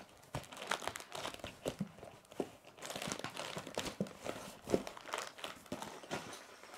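Fingers scraping and picking at a small cardboard LEGO set box while trying to open it: many short clicks and crinkly scratches as the box is handled and turned over.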